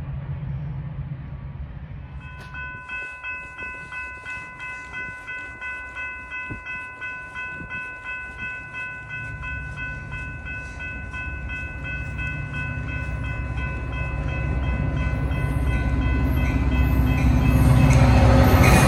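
A railroad grade-crossing bell starts ringing about two seconds in, with a quick, even ding repeated two to three times a second, as the crossing signals activate. From about halfway through, the low rumble of an approaching Metra diesel locomotive grows steadily louder and is loudest at the end.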